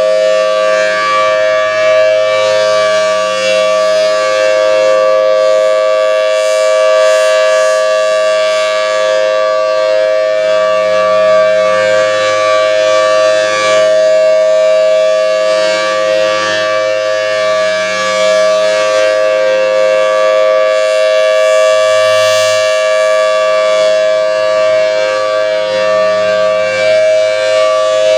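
Federal Signal Thunderbolt civil defense siren sounding a loud, steady tone that holds without rising or falling.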